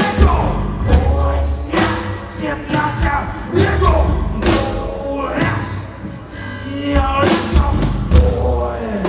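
Live band music: the drummer sings into a microphone while playing drums and cymbals, over heavy low thumps.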